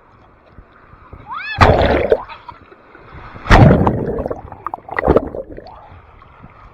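Beach waves splashing and washing in close to the microphone, in three surges about every one and a half to two seconds. A short rising cry comes just before the first surge.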